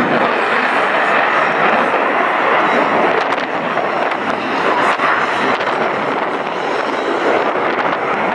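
Loud steady roar of a jet aircraft, with a couple of faint sharp cracks in the middle.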